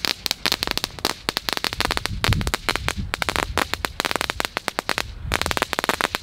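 Firecrackers going off in a rapid string of sharp cracking bangs, many a second, with a brief lull about five seconds in.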